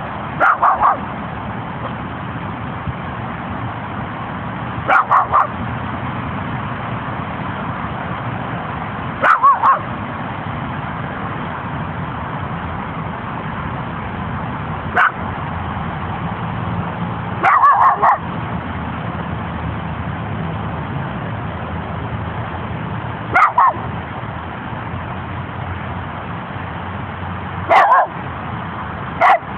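Small Jack Russell terrier–Chihuahua mix barking in short clusters of two to four sharp barks, with a pause of about four to six seconds between clusters: alert barking at a stranger camped behind trees.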